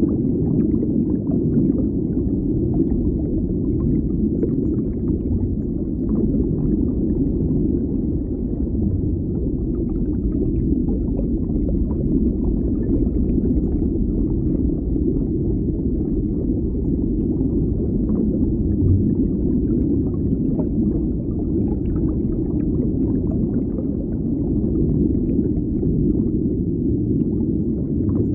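Underwater ambience: a steady, muffled low rumble with faint scattered crackling and gurgling above it.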